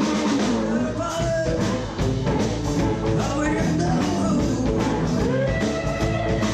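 Live blues-rock band playing: a woman singing over electric guitars and drums.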